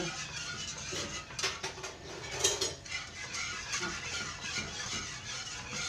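A spoon scraping and clicking irregularly against the inside of a nonstick saucepan as a milky sweet béchamel is stirred over the heat.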